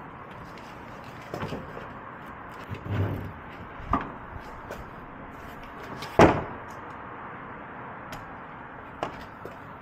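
Lightweight door panel being pulled off a BMW E36 door, knocking against the door shell in a handful of separate clunks, the loudest about six seconds in.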